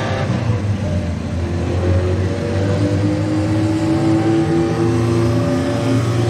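Vehicle engines running steadily at low speed, with one engine's pitch rising slightly about two seconds in.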